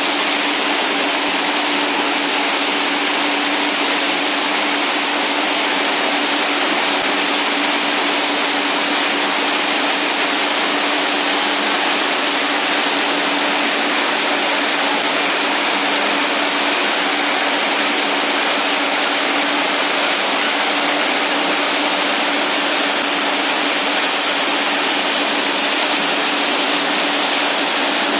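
PET bottle label separator and its feed conveyor running: a steady, even rush of machine noise with a constant hum.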